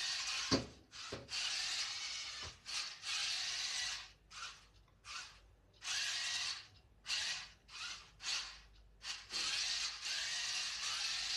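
Small electric gear motors of a homemade Bluetooth-controlled toy car whirring in stop-start bursts as it is driven about, with short on-off spurts from about four to nine seconds in. A few sharp knocks come in the first three seconds, the loudest about half a second in.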